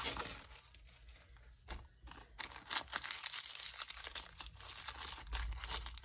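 Paper being handled, rustling and crinkling in a quick run of short crackles that grows busier about halfway through.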